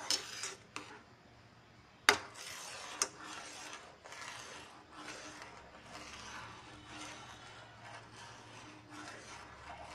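Steel spatula scraping round the bottom of a pan of thickening full-cream milk in repeated strokes, with two sharp clinks about two and three seconds in; the milk is stirred constantly so that it does not stick to the bottom.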